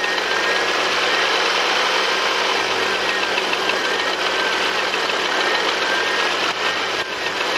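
Porsche Panamera's turbocharged 3.0-litre petrol V6 running with the accelerator lightly pressed, a rapid ticking over the engine note that quickens with engine speed. The mechanic suspects piston scuffing or a faulty rocker arm rather than a bearing.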